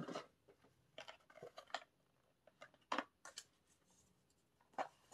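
Small cardboard product boxes being handled and shuffled: irregular light taps and rustles as they knock together and slide against one another.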